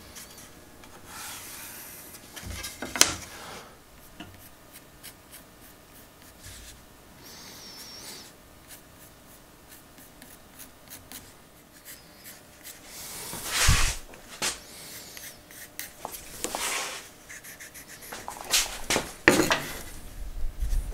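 Pencil scratching across a pine board in short sketching and tracing strokes, with small clicks and a few louder knocks as the board and tools are handled.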